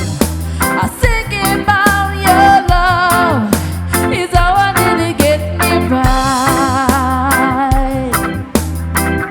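Reggae band music: a steady bass and drum beat under sustained melodic notes that waver in pitch.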